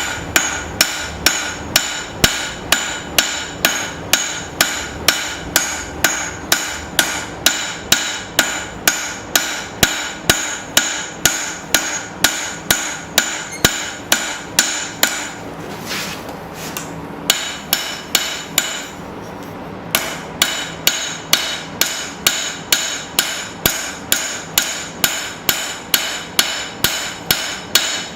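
Hand hammer striking hot steel on an anvil at about two blows a second, each blow with a ringing anvil tone, forging the bevel into a knife blade. A few seconds past the middle the rhythm breaks, with only a couple of lone blows, then steady hammering resumes.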